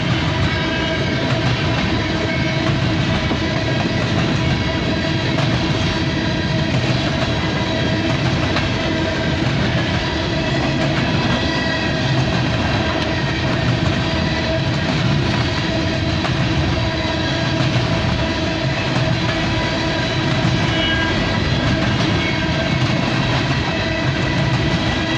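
Empty coal train rolling past: the rumble and clatter of loaded-light hopper cars on the rails, swelling and easing every second or two as trucks go by, with a steady ringing tone over it.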